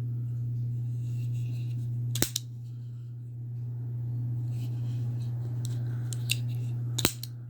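Benchmade Presidio automatic axis-lock knife clicking: sharp metallic snaps of the spring-driven blade firing open and being locked shut. There is a double click about two seconds in and another near the end, over a steady low hum.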